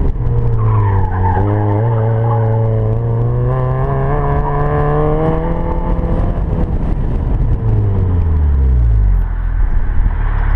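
Mazda Miata's four-cylinder engine pulling hard, heard from inside the car, with its BFGoodrich Rival tires squealing through the cone turns. The engine note climbs slowly for several seconds, then drops away sharply near the end as the car slows.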